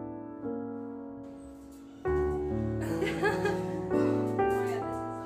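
Slow background piano music: sustained chords, each struck and left to fade before the next.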